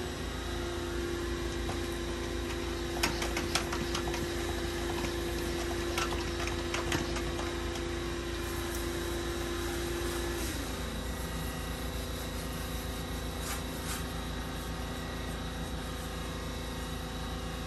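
Pressure washer running steadily while spraying, its steady tone dropping a little in pitch about ten seconds in, with a few sharp clicks along the way.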